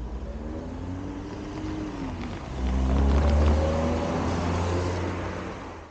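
A car drives past on a wet road. Its engine note rises as it accelerates, and the sound grows loudest about three seconds in, with tyre hiss on the wet asphalt, then eases off.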